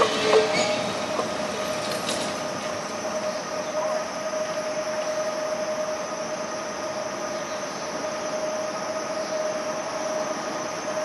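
Vintage electric tram rolling slowly past on its rails, a steady whine running throughout over the rumble of the wheels, with a brief louder burst at the very start.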